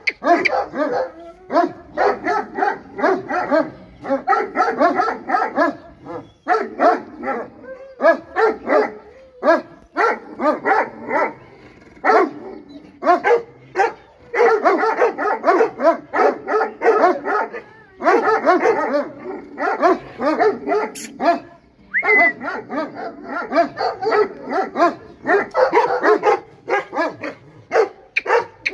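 Dogs barking in fast runs, several barks a second, with brief pauses between runs.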